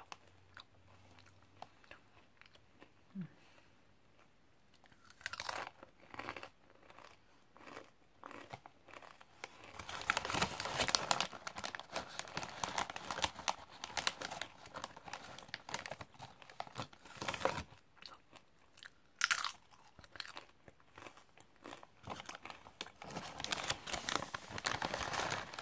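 Popworks sweet and salty popped crisps being bitten and chewed close to the microphone. A few crunches start about five seconds in, and chewing crunches come thick and fast from about ten seconds on.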